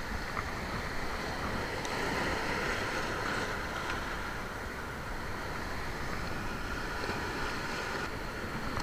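Sea surf washing and breaking over shoreline rocks, a steady rush of water.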